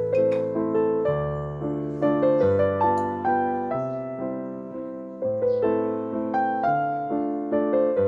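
Background piano music: a gentle melody of struck notes over a steady chord pattern.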